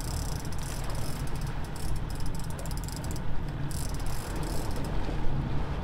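Big-game trolling reel giving a rapid, high clicking buzz with a fish hooked on the line, breaking off briefly about three seconds in and stopping near the end. Underneath is the steady low drone of the boat's engine.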